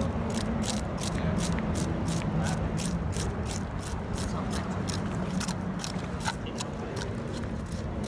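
A knife sawing through a freshly caught barracuda on rock, a quick run of short crunching, scraping strokes as the blade cuts through flesh and bone. A steady low rumble runs underneath.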